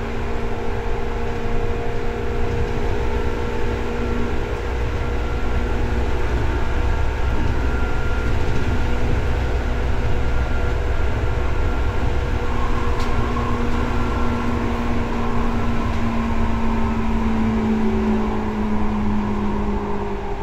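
Seibu 2000 series electric train running between stations, heard inside the car above the line breaker. There is a steady rumble of the wheels and running gear under a whine of the traction motors in several steady pitches, and one motor hum grows stronger near the end.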